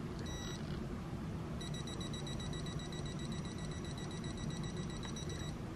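Assark 85D digital multimeter beeping faintly as its buttons are pressed to change mode: a short high beep near the start, then a longer, steady high tone for about four seconds, over a low background hum.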